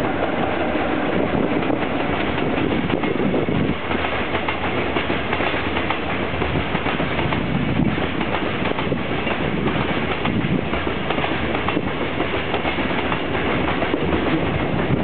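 Long freight train of container wagons rolling past close by, a steady loud rumble of steel wheels running and clattering on the rails.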